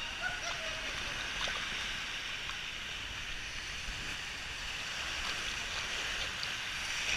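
Steady rush of water streaming down a water-park slide, heard by a rider sliding down it, with a few faint knocks.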